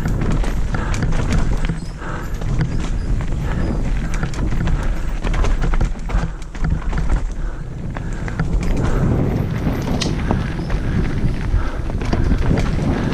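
Mountain bike riding downhill over a wet, rooty dirt trail: tyres rumbling on the ground and the bike clattering and knocking over roots and bumps without a break.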